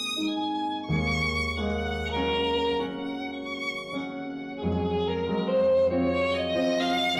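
Music led by a violin playing a slow melody with vibrato, with deep low notes coming in about a second in and again just before five seconds.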